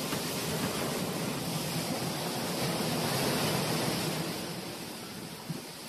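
Steady rushing noise of surf and wind, with no distinct knocks or voices; it eases slightly near the end.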